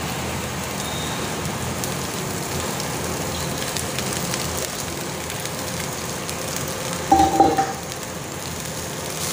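Onion, capsicum and freshly added boiled rice sizzling steadily in an oiled pan on high flame. A brief louder sound breaks in about seven seconds in.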